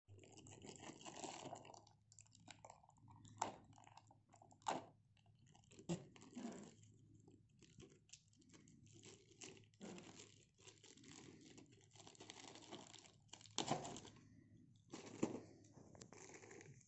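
Plastic poly mailer bag crinkling and rustling irregularly as it is tugged and torn open by hand, with a few sharp crackles.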